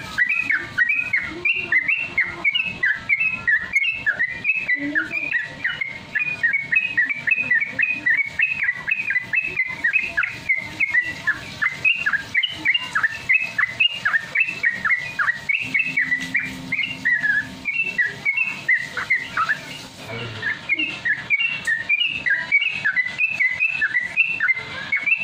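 Yellow-vented bulbul (trucukan) singing a fast, unbroken string of short chirping whistles, each note dipping in pitch: the rapid 'ropel' song.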